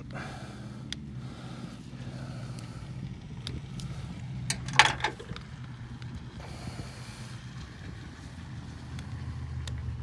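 Small clicks and scrapes of a plastic wiring connector at the fuse box being worked apart with a pick, with one louder sharp snap about halfway through, over a steady low mechanical hum.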